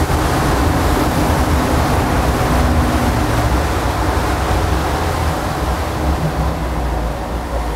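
39 Contender center-console boat running across the water: a steady rush of wind and water over a low engine drone.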